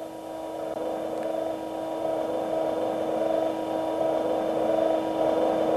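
Hydraulic power unit running with a steady hum, growing slowly louder, while it feeds oil at low flow to extend a hydraulic cylinder.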